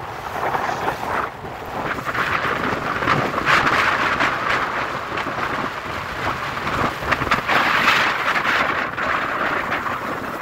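Wind rushing over the microphone of a phone carried by a skier going fast downhill, mixed with the hiss and scrape of skis on packed snow, swelling louder twice in the middle.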